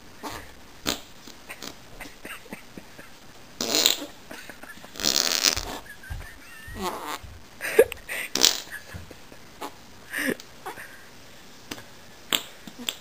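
A series of armpit farts: a hand cupped under the armpit is pumped against it by the arm. They come at irregular intervals, some short and sharp, a few drawn out to about half a second.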